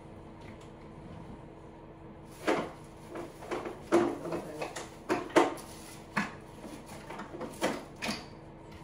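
A run of knocks and clatters, like things being picked up and set down or a drawer being moved, about a dozen sharp hits between two and a half and eight seconds in, over a steady low hum.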